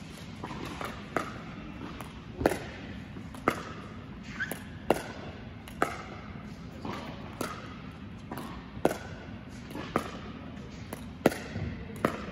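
Pickleball paddles hitting a plastic pickleball back and forth in a slow dink rally, a sharp pop about every second and a bit, with softer ball bounces between. Each hit echoes briefly in a large indoor court hall.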